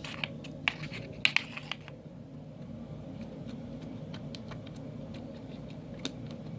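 Gold glitter slime with white beads being squished and handled, giving scattered small clicks and crackles, with a few sharper ones in the first two seconds, over a steady low hum.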